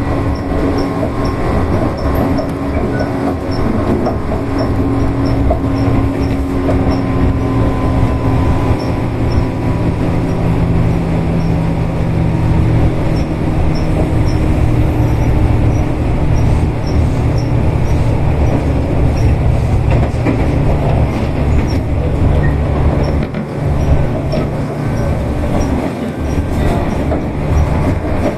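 Tobu 8000 series electric train running along the line: a continuous rumble of wheels on rail with the humming of motors and gears, some wheel squeal and rail-joint clicks.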